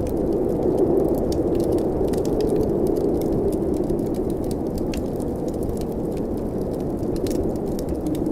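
Steady low rush of blizzard wind, with a wood fire crackling over it in scattered small sharp pops, a couple of them louder about five and seven seconds in.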